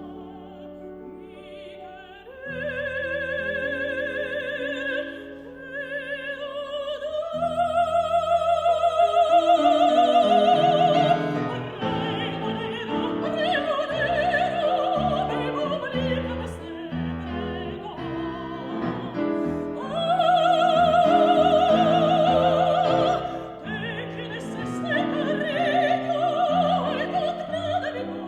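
Soprano singing a Spanish zarzuela song with piano accompaniment: long held notes with a wide vibrato over piano chords, swelling loudest about eight and twenty seconds in.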